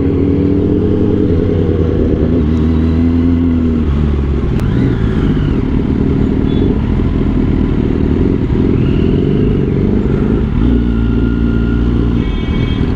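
Motorcycle engine running at low speed, heard close from the rider's own bike, its pitch dropping and rising a few times with the throttle.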